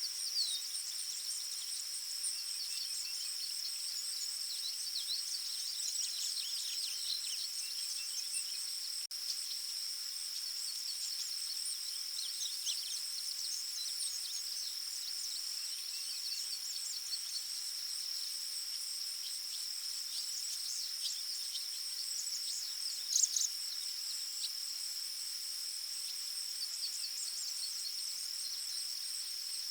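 Forest ambience: a steady, high insect trill runs throughout, with small birds chirping and calling on and off over it. One louder call comes about two-thirds of the way through.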